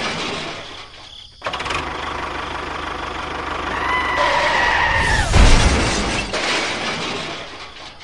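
Dubbed vehicle sound effects: an engine-like rumble, a high squeal sliding slightly down in pitch about four seconds in, then a loud crash with a heavy low thump as the toy tractor tips over.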